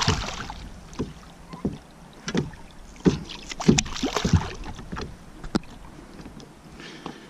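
A hooked bass thrashing and splashing at the water's surface beside a boat as it is landed. There is a splash right at the start and more splashing around three to four seconds in, with scattered short knocks in between.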